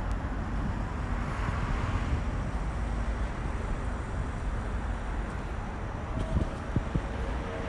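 Steady outdoor background noise: low rumble from wind on the microphone and distant traffic, with a few faint clicks about six to seven seconds in.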